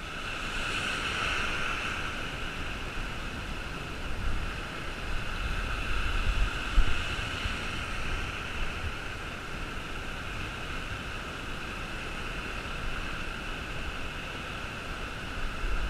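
Surf washing and breaking in the shallows, an even hiss, with wind rumbling on the microphone in gusts, strongest in the middle and near the end.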